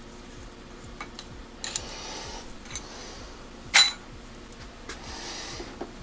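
Metal clicks and clinks as the milling machine's locks, handles and vise are worked by hand, over a faint steady hum. The loudest is a sharp, ringing clink about four seconds in.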